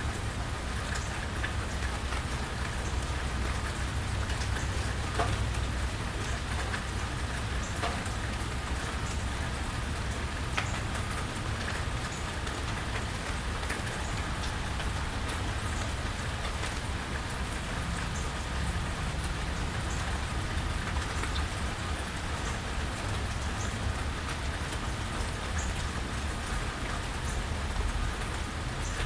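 Steady rain falling and pattering on surfaces, with many scattered sharp drip ticks over an even hiss and a steady low rumble.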